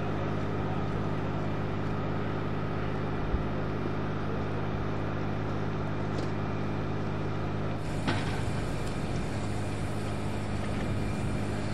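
F-16 fighter jet engines idling, a steady rumble with a constant low hum. A single sharp click about eight seconds in.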